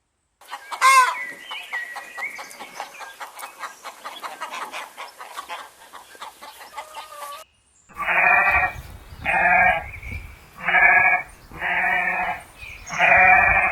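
A stretch of rapid clicking with a brief whistling note, then, after a short break, a farm animal bleating over and over, about five long calls roughly a second and a half apart.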